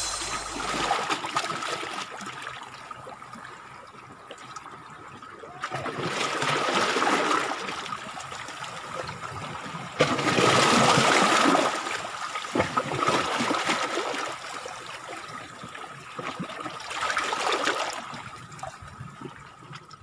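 Seawater washing and trickling among shoreline rocks, rising and falling in several surges, loudest about halfway through.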